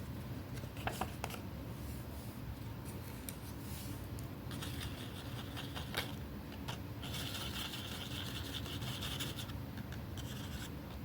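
Scratching and rubbing on paper, with a few sharp taps about a second in and at six seconds. There are longer stretches of scratching in the middle and again later.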